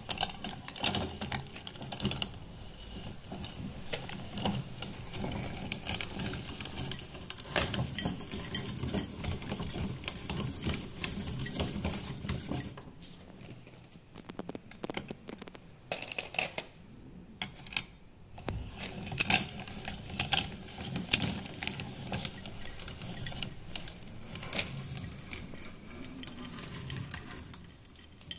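Metal meat grinder crushing a chocolate bar: dense, irregular clicking and crunching as the chocolate breaks up in the auger and is pushed through the plate, easing off for a few seconds about halfway through.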